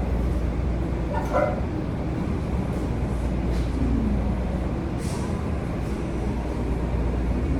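Steady low rumble of a moving city bus heard from inside, with a brief falling whine about four seconds in.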